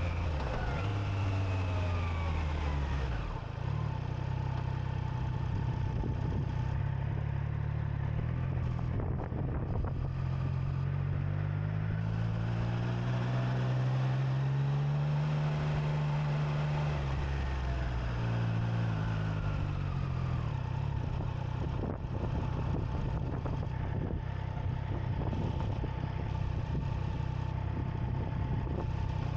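Triumph Trident 660's three-cylinder engine heard from the rider's seat: its pitch drops at the start, climbs to a peak around the middle and falls away again, then the engine idles steadily through the last several seconds while the bike stands still.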